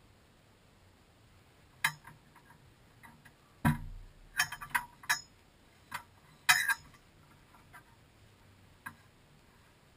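Scattered clicks and knocks from a driver shifting in the seat and handling gear inside a parked rally car. The loudest is a dull thump about four seconds in, followed by a quick run of clicks.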